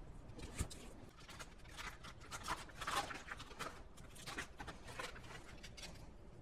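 Faint, irregular scrapes and soft knocks of a spatula, scraping batter out of a stainless steel mixer bowl and then spreading it in a parchment-lined baking dish, a little louder about halfway through.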